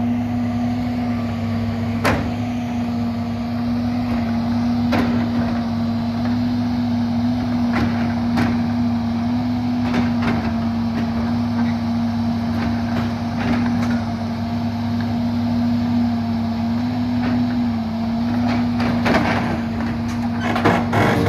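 Heavy equipment diesel engine running steadily, with a few sharp metal clanks and knocks, more of them near the end.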